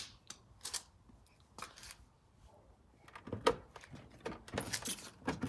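Scattered clicks, knocks and rustling from hands working at a plastic tail light housing to pull it free of its snap-in clips. The sounds are sparse at first and grow busier and louder in the last two seconds or so.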